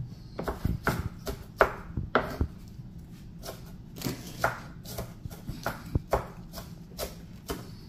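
Kitchen knife chopping onion on a wooden cutting board: irregular sharp knocks, about two a second.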